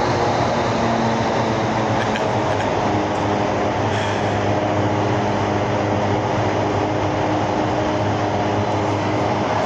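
Indoor skydiving vertical wind tunnel running: a loud, steady rush of air driven by its fans, with a steady hum of several held tones underneath.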